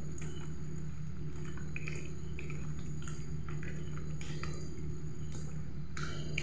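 Wet squelching and soft clicks of raw chicken pieces being worked by hand into a spice-and-oil marinade in a steel bowl, irregular and short, over a steady low hum.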